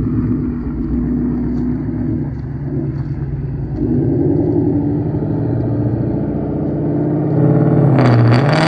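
Car engine running with a wavering pitch, then louder and rising into a rev near the end.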